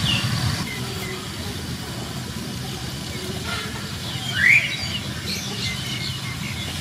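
A newborn puppy gives a short rising squeak about four and a half seconds in, with faint high squeaks here and there, over a steady low hum.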